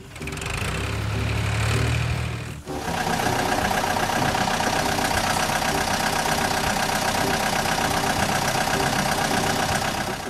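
Motor running steadily: a low rumble for the first couple of seconds, then after a sudden cut a steady, higher mechanical drone.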